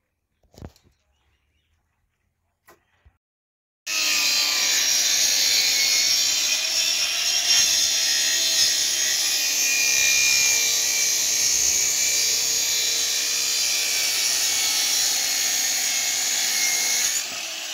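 A single knock about half a second in, then, from about four seconds in, a handheld electric circular saw running steadily as it cuts lengthwise along a wooden plank, a little quieter near the end.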